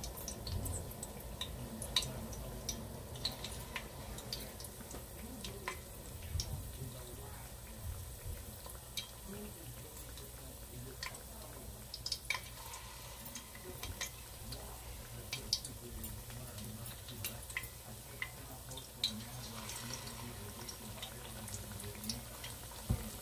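Chicken wings frying in hot oil in a pot: a steady sizzle with scattered crackles and pops of spitting oil.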